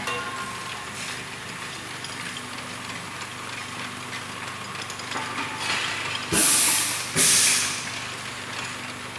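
LPG bottling plant machinery running with a steady hum. About six seconds in come two short, loud hisses of escaping pressure, about a second apart.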